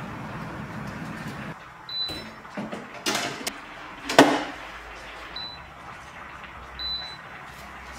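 Proscenic air fryer oven being loaded and set: a few knocks and clatters as the baking tray goes in, the loudest about four seconds in, then short high beeps from its control panel as it is programmed.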